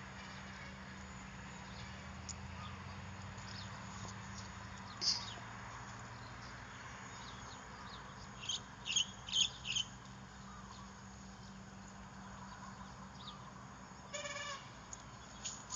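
Faint steady outdoor background with a few short, high chirps about five seconds in and again around nine seconds, and one short pitched animal call near the end.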